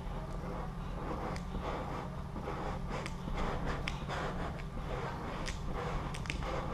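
Squeegee rubbing and scraping over vinyl wrap film, a continuous scratchy rubbing with scattered small clicks, over a steady low hum.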